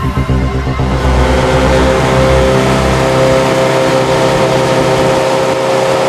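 Motorcycle engines running at a steady rolling speed, with wind rush, heard from a bike riding alongside. The deepest rumble drops away about halfway through.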